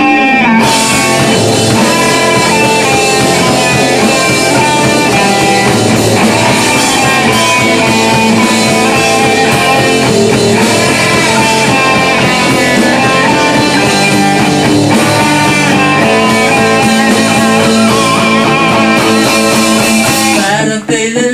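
Rock band playing live, with electric guitars and a drum kit, loud and dense throughout; the playing breaks off abruptly just before the end.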